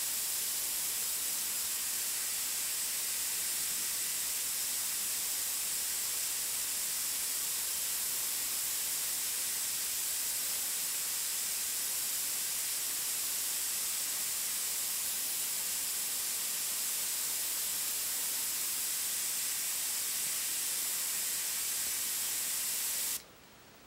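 Gravity-feed airbrush spraying thinned ink: a steady hiss of air from the nozzle that cuts off suddenly near the end.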